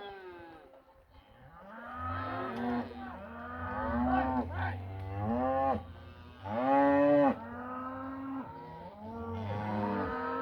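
A herd of cattle mooing, several animals calling over one another in long, arching moos. The loudest call comes about seven seconds in.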